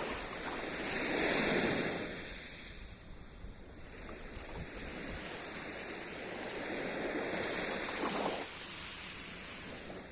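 Sea surf: waves breaking on the shore and washing back, swelling about a second and a half in and again near the end.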